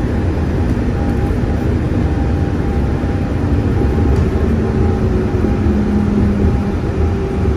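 Walt Disney World monorail train running, heard from inside the car: a steady low rumble with a faint motor hum.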